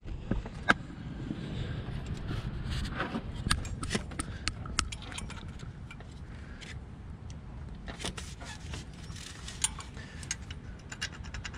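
Light clicks, taps and scrapes of a hand handling metal parts around an alternator and idler pulley in a car's engine bay, with one sharp click less than a second in, over a low steady rumble.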